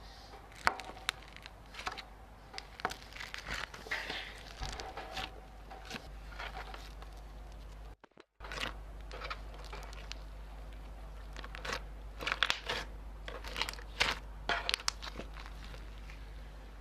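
Slime being squished and poked by hand, giving many sharp crackling clicks and crunches. The sound drops out briefly about halfway through.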